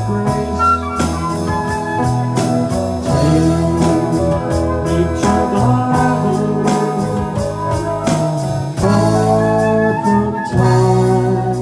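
Live band playing an instrumental passage, with saxophone holding long notes over bass and drums.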